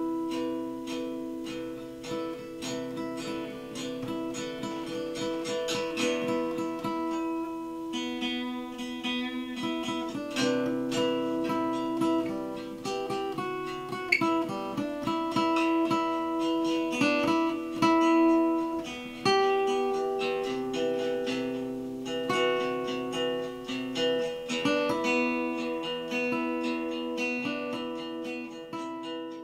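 Outro music: acoustic guitar playing plucked notes over held tones, fading near the end.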